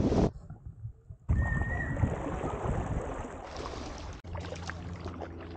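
Water splashing and rushing around a kayak's hull as it drops through a lock cut and is paddled on. The sound breaks off at sharp cuts, and a steady low hum takes over about four seconds in.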